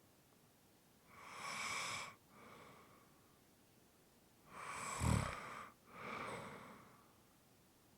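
A person snoring: two slow breath cycles, each a louder noisy breath followed by a softer one, with a brief low snore about five seconds in.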